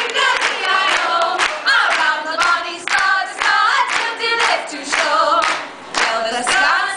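A group of women singing together a cappella, several voices in harmony in short phrases.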